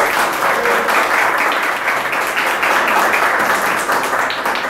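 Small crowd applauding with dense, rapid hand claps. The applause stops at the very end.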